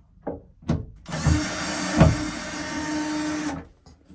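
Electric drill running for about two and a half seconds, boring a hole for a wardrobe rail's pole hanger, with a knock partway through. A few light knocks come before it starts.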